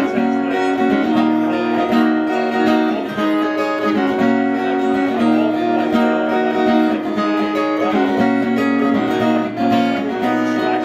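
Steel-string acoustic guitar with a capo, strummed in a steady repeating chord pattern, an instrumental passage with no singing.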